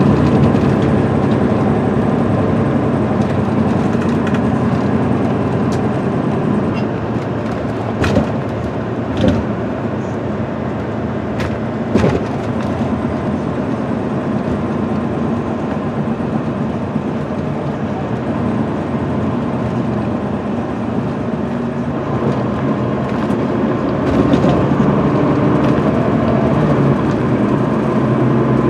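An MCI D4500CL coach's Cummins ISM diesel and Allison automatic drivetrain, heard from inside the cabin, running steadily at road speed over road noise. A few sharp knocks come about 8, 9 and 12 seconds in, and the sound grows a little louder near the end.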